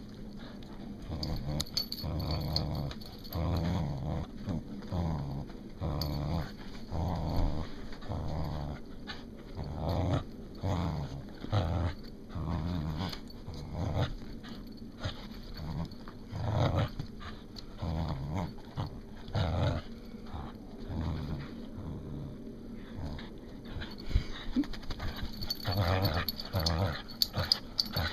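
A dog growling in play while tugging on a rope toy: a long run of short, low growls, one after another, about one or two a second.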